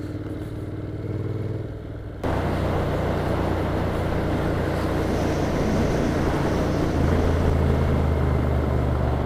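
Motorcycle engine running steadily while riding in traffic. About two seconds in, the sound gets suddenly louder and a rush of wind-like noise joins the engine, continuing as the bike rides on.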